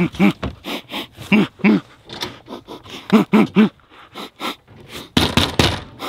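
A person in a gorilla costume making short gorilla-like hoots and grunts, often two or three in quick succession, with knocks on the camper's plywood wall and a loud rough burst of noise about five seconds in.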